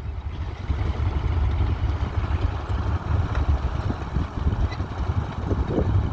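Fordson Super Dexta tractor's three-cylinder diesel engine running with a steady low rumble.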